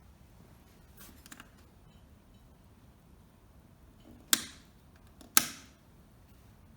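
Two sharp clicks about a second apart, after a faint brief rustle, against a quiet background.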